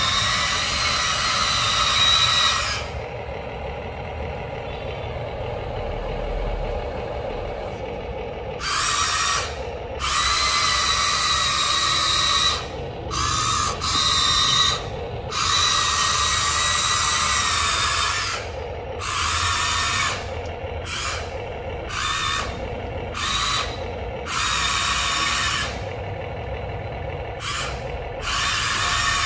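Huina RC excavator's electric track motors and gearboxes whining in repeated bursts, starting and stopping every second or few as it is driven, over a lower steady hum.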